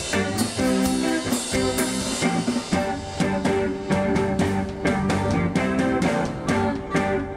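Live band music: a drum kit keeps a steady beat under sustained instrument lines.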